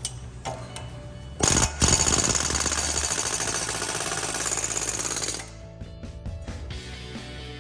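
An impact tool hammering rapidly in one burst of about four seconds, starting about a second and a half in and cutting off suddenly, over background music.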